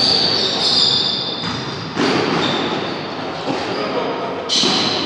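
Basketball game sounds echoing in a sports hall: sneakers squeaking on the hardwood court, the ball bouncing and players' and spectators' voices, with sudden louder moments about two seconds in and near the end.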